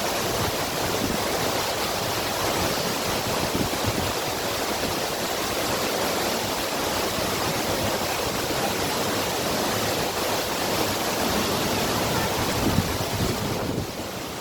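Waterfall water rushing in a steady roar of noise, dipping briefly in level near the end.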